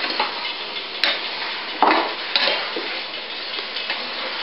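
Chicken pieces sizzling as they brown without oil in a preheated Saladmaster MP5 stainless-steel electric roaster. A spatula scrapes and knocks against the pan a few times as the pieces are pushed against its bottom and sides.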